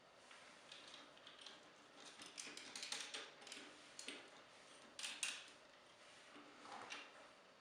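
Plastic action-figure parts being handled and fitted together: faint scattered clicks and rustles, busiest in the middle, with a couple of sharper snaps about three and five seconds in.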